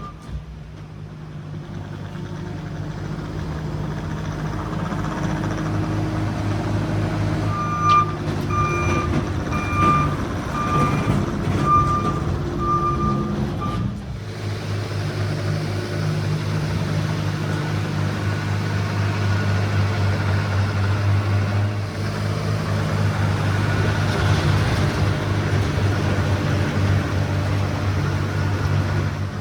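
Case TR310B compact track loader's diesel engine running steadily. Its backup alarm beeps about once a second for several seconds, stopping a little before halfway.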